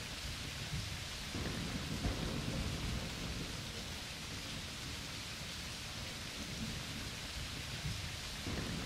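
Steady rain hissing, with a long low rumble of thunder rolling in about a second and a half in and fading near the end.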